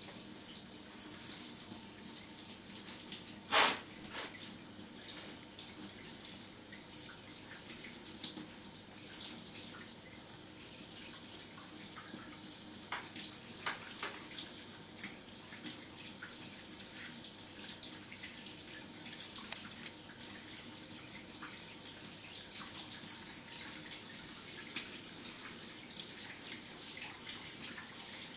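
Water running and dripping in a bathtub, with many small drips and splashes and one brief louder noise about three and a half seconds in.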